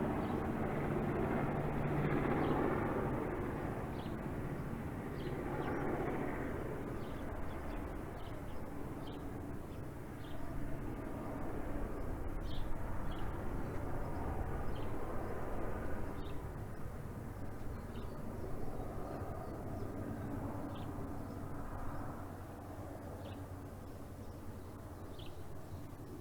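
Helicopter passing overhead and flying away, its rotor and engine rumble slowly fading with a brief swell partway through. Short high chirps sound now and then over it.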